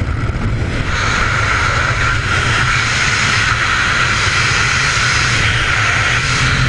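Steady rush of air blasting over a skydiver's helmet-camera microphone in freefall, building up over the first second.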